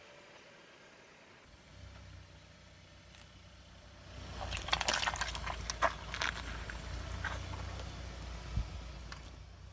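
Car engine rumbling low as a tyre rolls over and crushes objects, with a run of irregular crackling crunches and wet, liquid squishing, and two sharper cracks.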